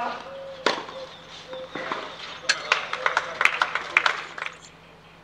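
A tennis ball struck once by a racket about a second in, then an irregular flurry of short sharp knocks and clicks for about two seconds.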